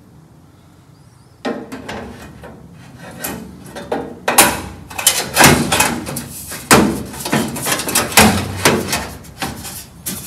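Long primed steel body panel for a Porsche 914 clunking against metal as it is handled and test-fitted: a string of irregular sharp metallic knocks starting about a second and a half in, louder and closer together from about four seconds in.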